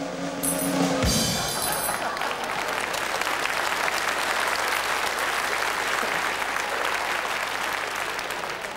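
Stage band music ends about a second in with a bass drum and cymbal hit, and a studio audience then applauds steadily.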